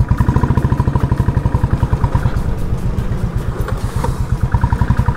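Motorcycle engine running steadily at low revs while ridden slowly, a rapid even beat of exhaust pulses.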